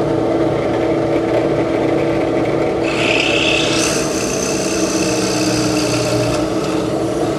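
Drill press running with a quarter-inch plug cutter boring into a maple strip: a steady motor hum under the scraping of the cutter in the wood. About three seconds in, a higher screech joins as the cutter bites deeper, and the cut scorches the maple slightly.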